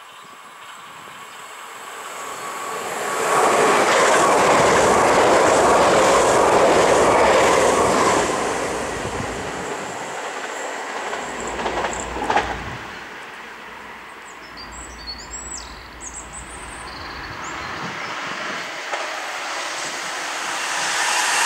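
Dutch electric passenger trains on the rails: a VIRM double-deck train's wheel and rail noise swells to its loudest a few seconds in and then eases off as it runs into the station. Near the end the rail noise rises again as an ICMm intercity approaches.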